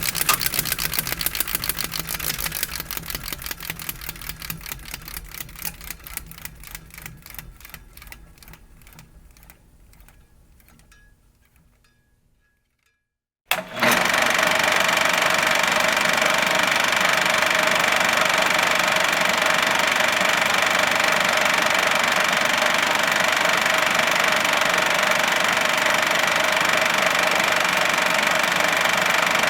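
Film projector clattering as it runs down: the clicks slow and fade to silence about twelve seconds in. Then a projector starts suddenly and runs on steadily with a loud whir and a high whine.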